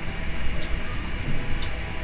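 Steady low background hum with a faint sharp tick about once a second.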